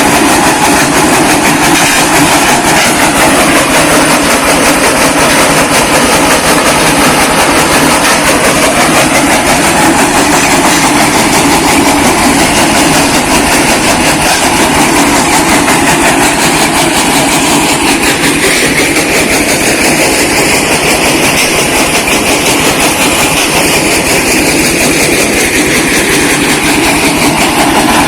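Brick-breaking machine running steadily: a loud, continuous mechanical clatter as it crushes bricks.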